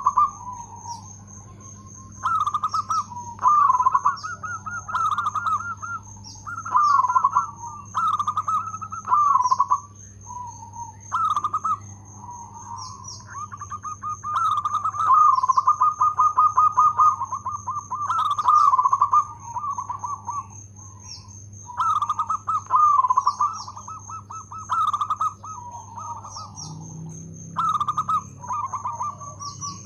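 Zebra dove (perkutut) cooing in repeated phrases of rapid, rolling coos, each phrase a second or two long, with short pauses between.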